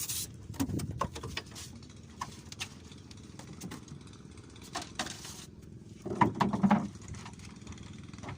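Strong wind buffeting the microphone in low rumbling gusts, loudest about six seconds in, with scattered clicks and knocks.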